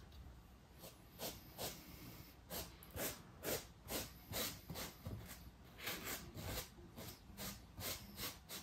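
Wet paintbrush dabbing and rubbing paint into a carved styrofoam cliff face: soft, scratchy brush strokes, about two a second.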